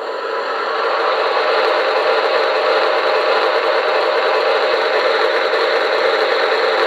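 QSI Maxx Traxx model-train sound unit playing its diesel locomotive engine sound through a small speaker: a steady, thin-sounding engine din with little bass, which grows louder over the first second and then holds.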